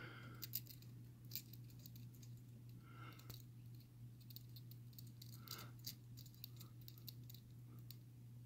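Faint, scattered clicks and light rattling of a lock pick working the pins inside a six-pin Carbine padlock, over a low steady hum.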